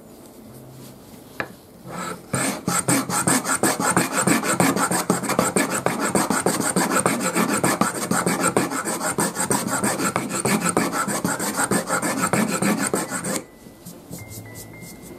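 Wooden base of a Japanese kanna plane scraped rapidly back and forth over the blade of a truing plane, a dry, even rasping of wood being shaved to true the plane's base. It starts about two seconds in and stops suddenly near the end, after a single sharp click just before it starts.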